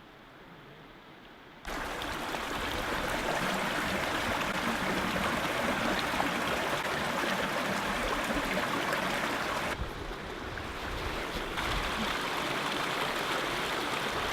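Steady rush of running stream water, starting abruptly about a second and a half in after a quiet start, and dipping briefly in level around ten seconds.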